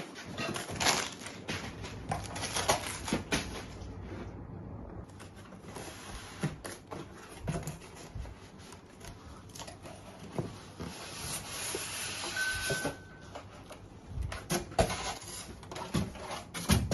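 Cardboard and plastic packaging of a large TV being handled during unboxing: rustling and scraping with many irregular knocks. There is a short, high squeak about twelve seconds in and a heavier thump at the end.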